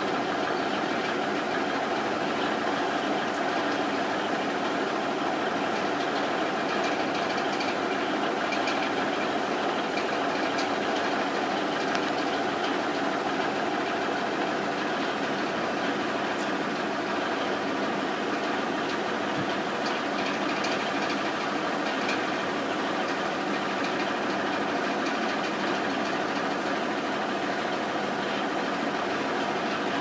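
A steady mechanical drone, like an idling engine, with several held tones, unchanging throughout; a few faint high ticks sound over it.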